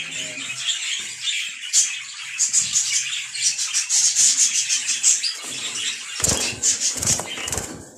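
Budgerigars chattering: a fast, unbroken run of high chirps and clicks, with a few dull knocks between about six and seven and a half seconds in.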